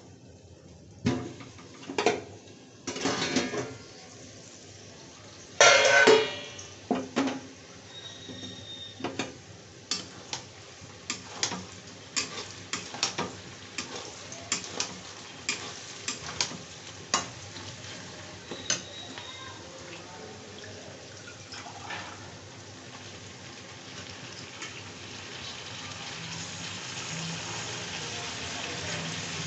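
A steel lid clattering off a kadai, then a metal spatula clanking and scraping against the pan as frying onions are stirred, with sharp knocks about once or twice a second. A hissing sizzle builds near the end as raw chicken pieces go into the hot oil.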